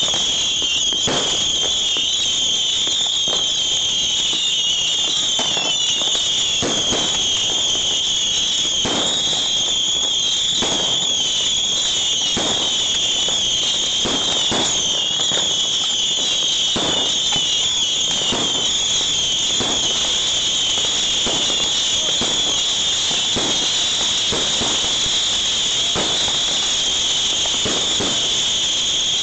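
A continuous barrage of bottle rockets launching from a homemade multi-tube launcher: a steady, dense high whistling hiss, with pops about once a second.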